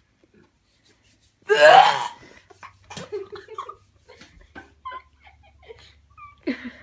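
A boy's short, loud, wheezy burst of laughter about a second and a half in, followed by quiet scattered clicks and rustles of handling.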